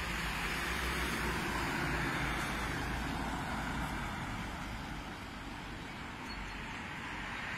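A minivan driving past on the road. Its tyre and engine noise swells about two seconds in, then fades as it moves off.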